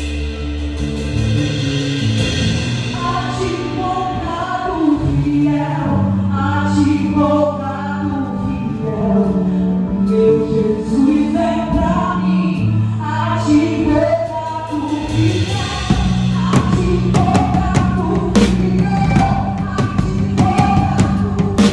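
A live band plays a Brazilian gospel song with sung vocals over bass and keys. The drum kit comes in fully in the second half with steady hits.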